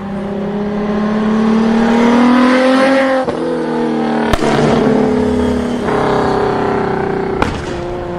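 Car engine revving hard as the car accelerates. The engine pitch climbs for about three seconds, drops sharply, then climbs again. Two sharp exhaust pops come through, about four seconds in and near the end, as the engine fades away.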